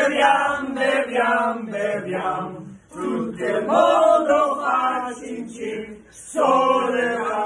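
A group of men and women singing a toast song together, in three phrases with short breaks between them.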